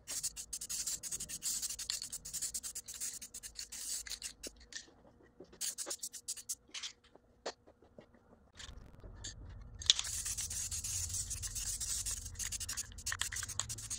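Aerosol spray-paint can hissing in short, broken bursts, then more steadily in the last few seconds. A low hum comes in a little past halfway.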